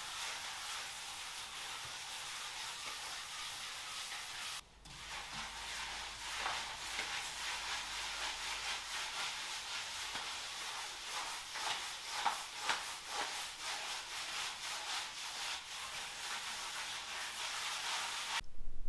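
Trowel rubbing and scraping render across a wall in quick repeated strokes. There is a brief break about four and a half seconds in, and the sound stops just before the end.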